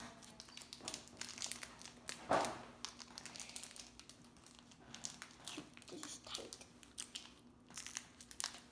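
Crinkling and crackling of plastic and foil packaging being handled, in irregular bursts, with one louder crackle about two and a half seconds in.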